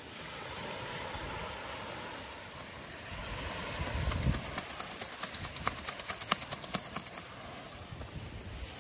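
Wind and surf on an open beach make a steady rush, with a low rumble of wind on the microphone swelling about four seconds in. Over the second half come many small, sharp, irregular clicks and crackles.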